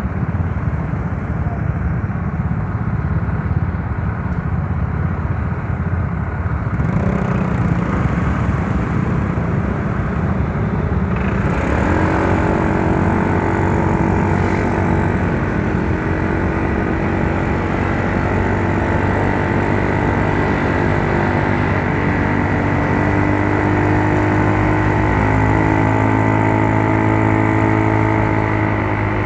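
Yamaha Mio Soul scooter's single-cylinder four-stroke engine on a ride: wind and road rush at first, then about twelve seconds in the engine note slows and settles into a steady hum, as when the scooter slows and stops.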